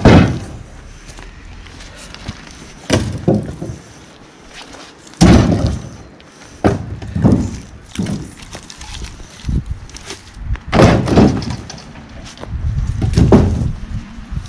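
Heavy wooden thuds and knocks from log rounds of a felled tree: about seven loud, irregularly spaced impacts, some with a cracking edge.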